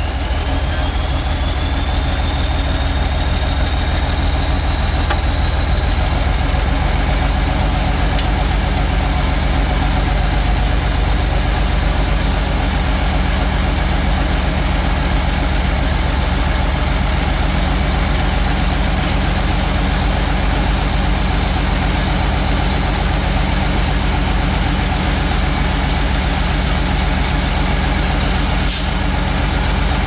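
Diesel engine of a heavy earthmoving machine running steadily, with a high whine that rises over about the first second and then holds.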